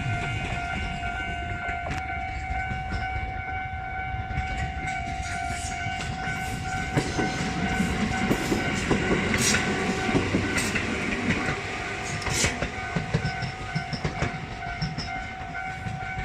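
Japanese railway level-crossing warning bell ringing steadily while a Tobu Railway train rolls through, its wheels clattering over the rail joints through the middle of the stretch.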